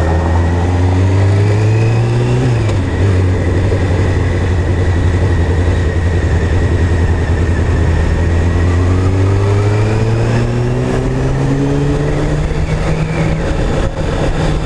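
Honda CBR600 F4i's inline-four engine pulling: its pitch climbs for about two seconds, drops sharply, runs low and steady for several seconds, then slowly rises again and holds.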